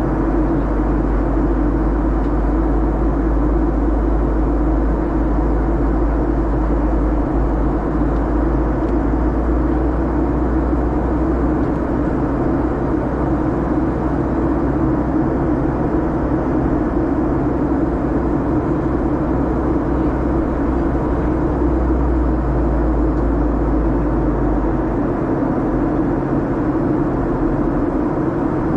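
Steady cabin noise inside a Boeing 737-800 in flight: the drone of its CFM56 turbofan engines mixed with the rush of air past the fuselage. The deepest rumble eases a little near the end.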